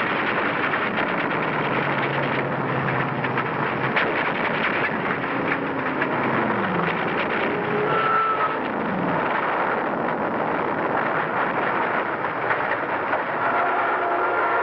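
Battle sound effects on an old film soundtrack: the drone of aircraft engines over a dense crackle of gunfire and explosions. Twice past the middle a plane goes by with a falling whine, and there is one sharp crack about four seconds in.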